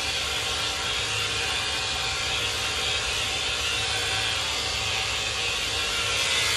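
Electric dog-grooming clippers running steadily, a constant motor whir with hiss.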